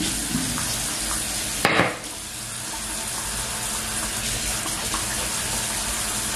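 Bathroom sink tap running with a steady rush of water, with a short louder noise just under two seconds in.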